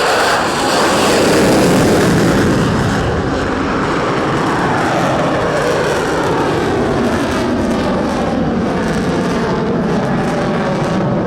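Airplane flying past at an air show, its engine noise loudest about a second or two in, then falling in pitch as it passes and recedes.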